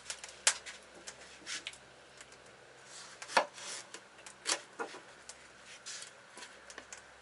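Kitchen knife slicing through watermelon and knocking on a wooden cutting board: several sharp knocks a second or more apart, with short scraping cuts between them.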